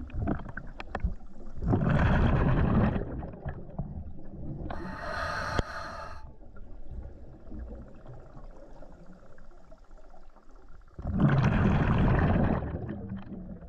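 Scuba diver breathing through a regulator underwater: a gush of exhaled bubbles about two seconds in, a hissing inhalation through the regulator around five seconds in, then a pause and a second bubbling exhalation about eleven seconds in.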